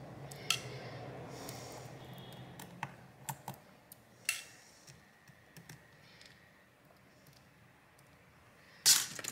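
Small irregular clicks and ticks of a precision screwdriver and fingers working screws and metal shielding inside an opened smartphone, with one louder clack just before the end.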